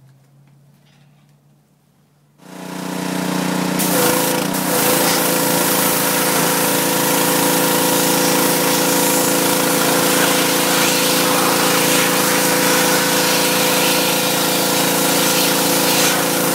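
Pressure washer cutting in about two seconds in and then running steadily: a hum from its motor and pump under the loud hiss of the water jet spraying the underside of a car.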